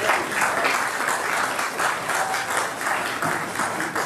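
Audience of many people applauding, a dense, steady clapping.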